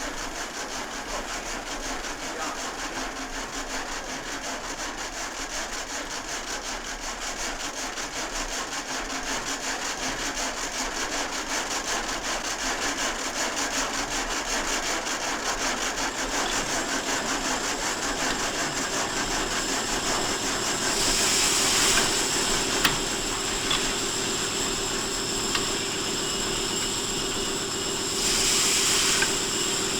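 Machinery running with a fast, even beat that grows steadily louder; a low steady hum joins about halfway, and two loud bursts of hiss come about two-thirds of the way through and again near the end.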